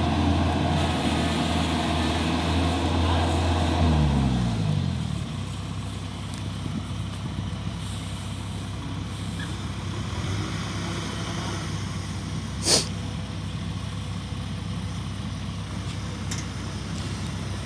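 Kubota rice combine harvester's engine running at high revs, then winding down about four seconds in to a lower, quieter steady run. A single short, sharp sound about two-thirds of the way through is the loudest moment.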